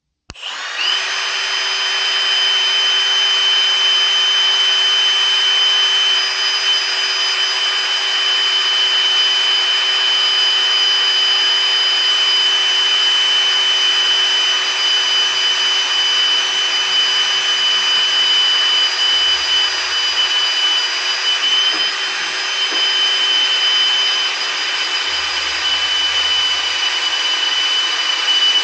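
Electric drill running at a steady speed with a constant whine, boring bolt holes through a tool box with an oversized bit. It starts suddenly at the beginning and keeps going without a break.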